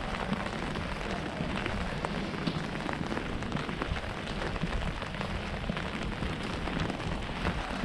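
Rain falling on a wet city street: a steady hiss with many small, sharp taps scattered through it.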